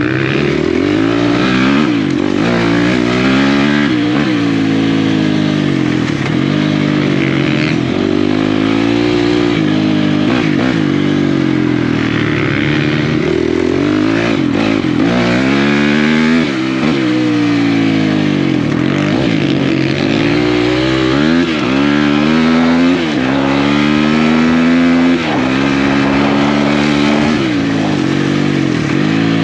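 Single-cylinder four-stroke off-road engine at racing pace, its pitch climbing and dropping over and over as the throttle is worked and gears change. The throttle is briefly cut a couple of times.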